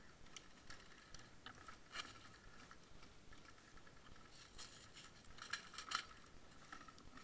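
Near silence broken by faint, scattered clicks and knocks from the camera wearer's rifle and gear as he walks, with a sharper knock about two seconds in and a quick cluster of clicks near six seconds.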